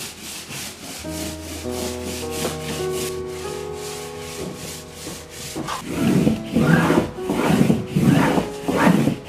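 The paper backing of a mounted Chinese painting is rubbed hard by hand during waxing and burnishing, in even back-and-forth strokes. The strokes are faint at first and turn loud about six seconds in, at about two strokes a second. Waxing and burnishing leaves the back smooth and damp-proof.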